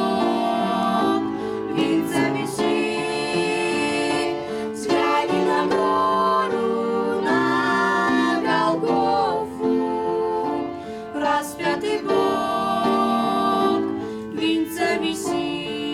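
Music: a Russian Christian hymn sung with instrumental accompaniment, with long, drawn-out sung notes and chord changes.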